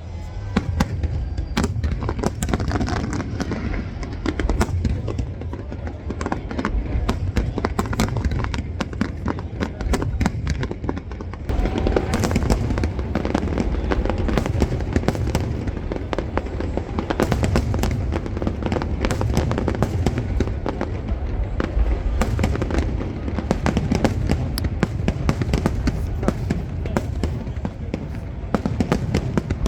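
Aerial fireworks going off in a dense barrage: rapid sharp cracks over a constant run of deep booms. The barrage gets louder and thicker about eleven seconds in.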